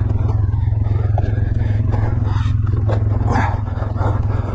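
ATV engine running steadily, with a few light knocks over it.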